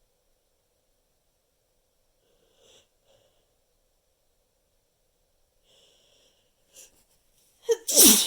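A person sneezes once near the end, a loud sudden burst with a falling voice.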